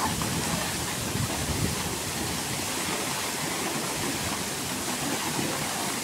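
Strong waterfall plunging into a rock pool: a steady rush of falling water.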